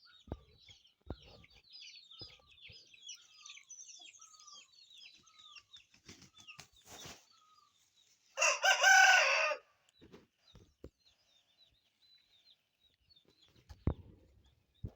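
A rooster crows once, loud, about eight seconds in, over steady chirping of small birds; a few faint clicks and knocks near the start and end.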